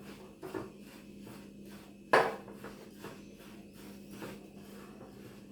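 A utensil scraping and stirring through crushed biscuits mixed with caramel dessert cream in a bowl, in quick regular strokes, with one sharp knock against the bowl about two seconds in.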